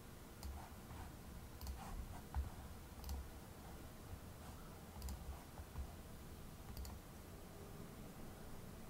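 Faint computer mouse clicks, about half a dozen spread irregularly over several seconds, with soft low thumps among them over a faint steady hum.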